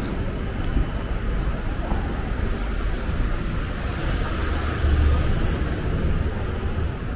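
Busy city-street ambience: a steady rumble of road traffic, cars passing close by the pavement, with a louder low rumble about five seconds in.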